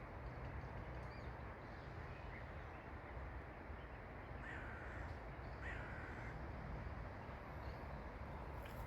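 Two short bird calls about a second apart, over a steady low background rumble.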